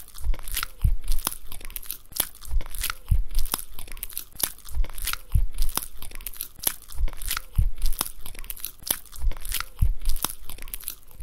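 Golden retriever chewing and crunching a mouthful of leafy greens, with wet tearing bites at about two or three a second and a dull low thump every second or so.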